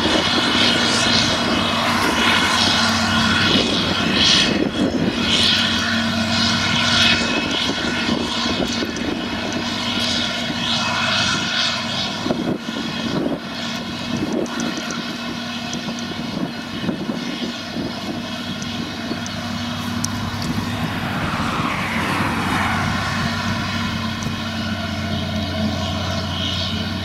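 Claas Jaguar forage harvester chopping grass at work: a steady loud drone of engine, chopper and blower with several steady whining tones, one of which slides down in pitch about three quarters of the way through.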